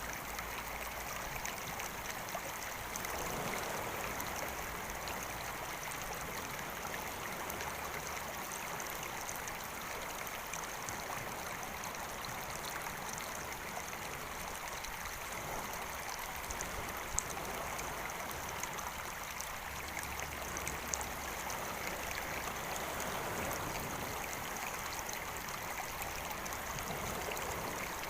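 Small stream flowing steadily, with slow swells in level and two brief clicks in the second half.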